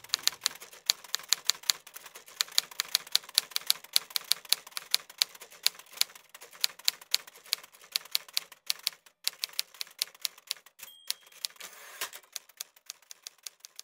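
Typing on a 1925 Corona Four four-bank portable typewriter: a fast, uneven run of sharp type-bar strikes, about four or five a second. There is a short ringing tone near the end.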